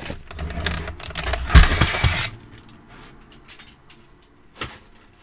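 A plastic paper trimmer being lifted and slid off a cutting mat: a clattering, scraping rattle with a thump about a second and a half in, then a few faint clicks.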